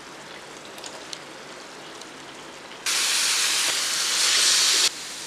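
Curry sizzling in a hot pan on the stove. A soft sizzle gives way about three seconds in to a loud, even hiss that starts suddenly and cuts off about two seconds later.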